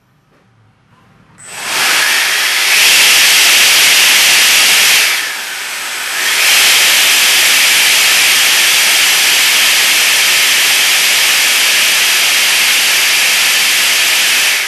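A loud, steady hiss that starts about a second and a half in, eases briefly a little before the middle, then holds steady until it dies away at the end.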